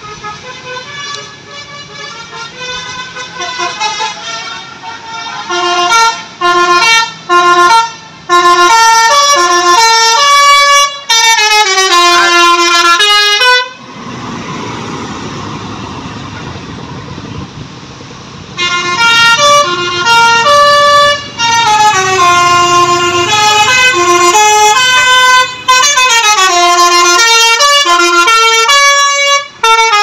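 Tour-bus telolet horn, a multi-tone air horn, playing a tune of stepped notes with quick falling runs, growing louder as the bus comes near. The tune breaks off for a few seconds while the bus's engine and tyres pass close by, then starts again.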